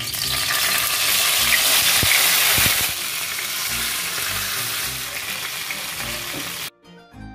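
Hot coconut oil sizzling loudly as a whole marinated chicken goes into a nonstick pan to shallow-fry. The sizzle is loudest for the first three seconds or so, then settles to a steadier level and cuts off suddenly near the end, leaving soft background music.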